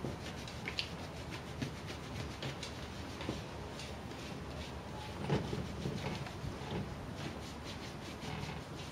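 Brushing strokes through a short-haired dog's coat: a repeated scratchy rubbing, about two strokes a second.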